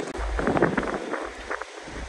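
Hurricane wind gusting hard against the microphone, an uneven rushing with a deep rumble of buffeting underneath.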